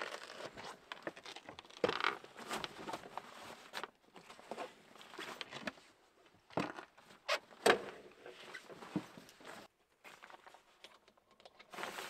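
Handling noise as a hard-shell rooftop tent on a vehicle roof is opened and set up: irregular knocks and clicks from the shell and its frame, with the rustle of tent fabric and bedding. A few sharper knocks come in the middle.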